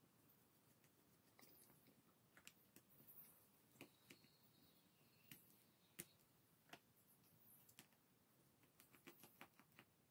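Near silence with faint, scattered small clicks and ticks from a small Phillips screwdriver and tiny screws being worked out of a Samsung Galaxy S6 midframe. The sharpest tick comes about six seconds in.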